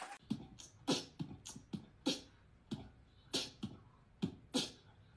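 Beatboxing: mouth-made kick and snare sounds in a loose rhythm, about two hits a second.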